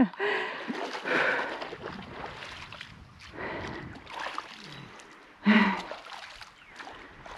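Irregular splashing and sloshing of shallow water, with a short grunt about five and a half seconds in.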